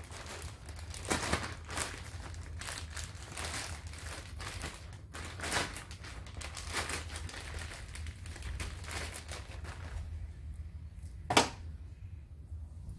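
Plastic bag crinkling and rustling as it is handled, in irregular bursts for about ten seconds; then it goes quieter, with one sharp click near the end.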